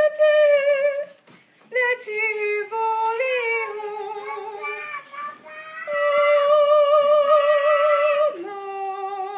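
A young woman singing solo with no accompaniment, holding sustained notes with vibrato. A long held note from about six seconds in drops to a lower one near the end.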